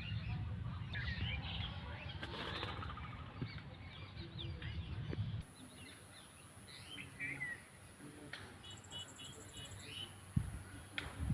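Several birds chirping and calling, with a quick run of repeated short notes about nine seconds in. A low rumble underneath cuts off abruptly about five seconds in.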